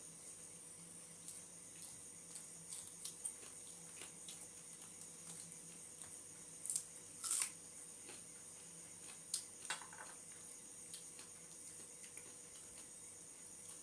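Faint sounds of eating by hand: fingers working through rice and curry and mouths chewing, with scattered small clicks and a few louder crackly, wet smacks about seven and ten seconds in. A faint steady high-pitched whine sits underneath.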